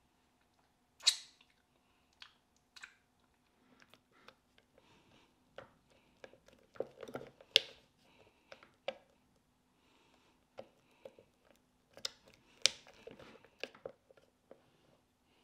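A spatula scraping thick taro paste out of a plastic blender jar: scattered sharp knocks and taps on the jar, with soft wet scraping between them. The loudest knocks come about a second in, around the middle and a few seconds before the end.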